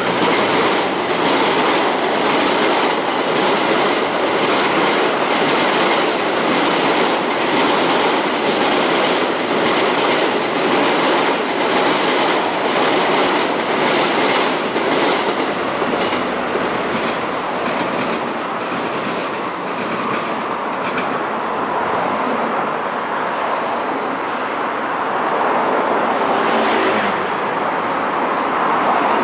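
JR E233-3000 and E231-1000 series electric commuter train running past, its wheels beating a regular clickety-clack over the rail joints. The clatter fades after about sixteen seconds, leaving a steady background rumble.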